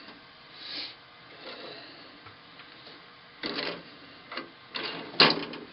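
Scattered metal clicks and clunks of a tap being worked free of a drill press and handled. There are a handful of short knocks spread through, the sharpest near the end.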